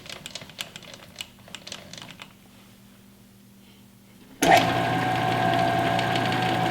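Light clicks and taps of tools being handled, then about four and a half seconds in a metal lathe switches on suddenly and runs steadily with a motor whine and hum.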